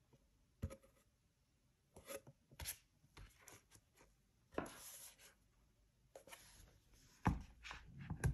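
Handling sounds of an Apple Magic Keyboard for iPad Pro being folded open: soft rubbing of its cover and several light taps and clicks, with a sharper knock near the end as it comes to rest on the desk.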